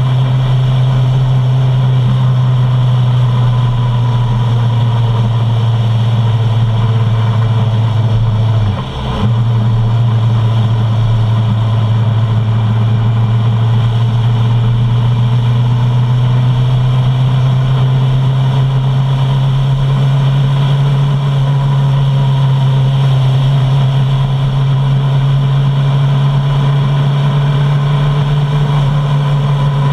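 Suzuki Bandit 650's inline-four engine running steadily while riding, with the engine note briefly dipping about nine seconds in and creeping slightly higher in pitch later on.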